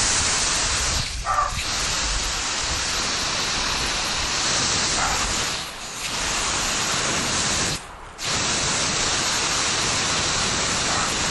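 Water spraying from a garden hose nozzle: a steady hiss, broken by a few short dips in the spray, the clearest about eight seconds in.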